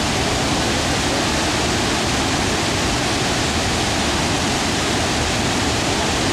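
Large waterfall on the Caroní River heard close to its base: a loud, steady rush of falling water with no let-up.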